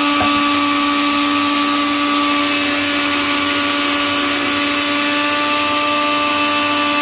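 Electric mixer grinder running steadily, a loud constant motor hum and whir with a light knock near the start, grinding soaked rice and chana.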